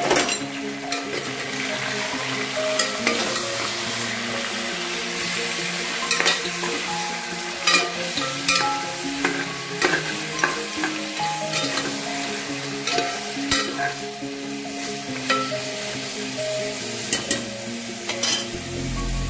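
Pieces of buffalo meat frying in oil in a pot, sizzling steadily, with the sharp clacks of a spoon against the pot as they are stirred.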